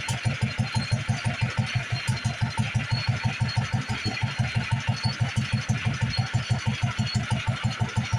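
International Harvester LA 3–5 hp single-cylinder gas engine running steadily at a slow display speed, with an even, rapid exhaust beat, driving a lineshaft and its belted machines.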